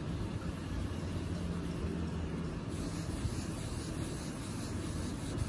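Quick, repeated rubbing strokes of ink being wiped off freshly tattooed eyebrow strokes, starting about halfway in, over a steady low hum.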